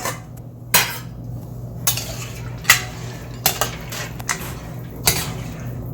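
A spoon stirring macaroni and water in a pot, knocking against the pot about seven times at uneven intervals, over a steady low hum.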